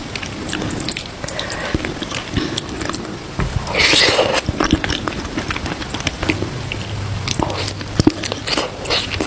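A person eating close to the microphone: biting and chewing with wet smacks and clicks, and one louder burst of noise about four seconds in.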